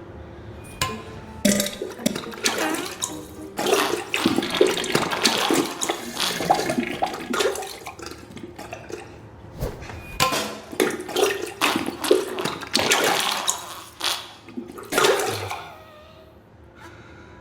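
Diarrhea sound effect: wet sputtering and splattering into toilet water in a long run of irregular bursts, dying away near the end.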